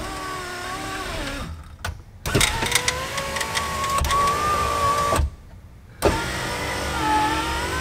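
Power midgate window motor of a 2004 GMC Envoy XUV driving the glass on a newly fitted regulator. It whines in three runs with two short pauses, and its pitch wavers a little. It is not running quite as smoothly as it should, because the regulator's mounting screws are still loose.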